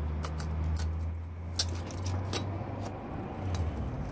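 Metal clinks and clicks of a MIG welder's spring-loaded ground clamp being worked onto a rusty square steel tube, to get a better ground than the bad one that spoiled the last bead. There are a few sharp clicks, the loudest a little under a second in, over a low steady hum.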